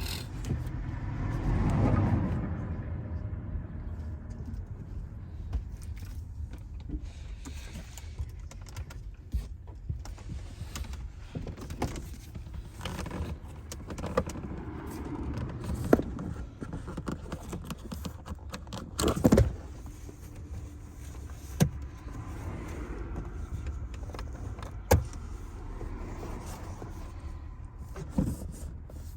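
Hand work inside a car's interior: small metal clinks and rattles as parts and tools are handled, with several sharp knocks, the loudest about two-thirds of the way through.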